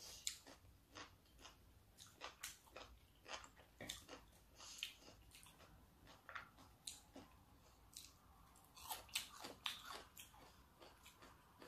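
Quiet, close-miked chewing of raw salmon sashimi: irregular wet mouth clicks and smacks, busier about nine seconds in.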